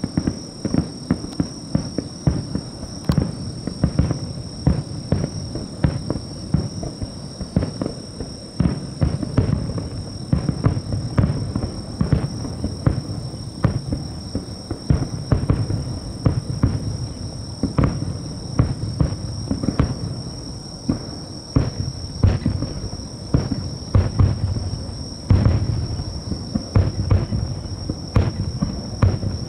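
Aerial firework shells bursting in rapid succession: a dense run of sharp booms and cracks, with low rumble filling the gaps between them.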